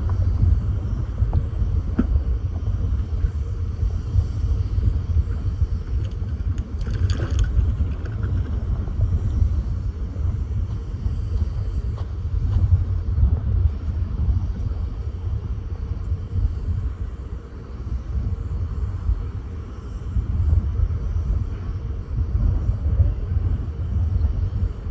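Strong wind buffeting the microphone: a heavy low rumble that surges and eases with the gusts. A brief, sharper rustling sound stands out about seven seconds in.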